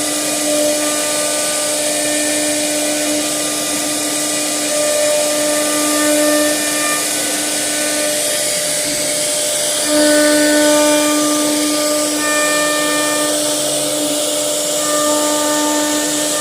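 A wood CNC router carving a wooden wardrobe door panel. Its spindle runs with a steady hiss, and pitched motor whines come and go and change pitch every few seconds as the machine moves along its cutting path.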